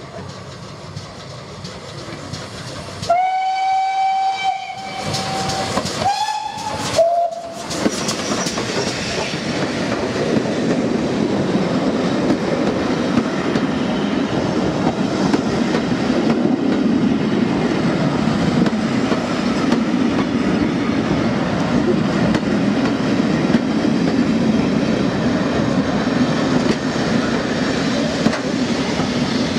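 Steam locomotive whistle: one long blast of about two seconds, then two short blasts, sounded as it nears the foot crossing. Then the locomotive and its coaches pass close by, a loud, steady rumble and clatter of wheels on the rails that builds and carries on as the carriages go past.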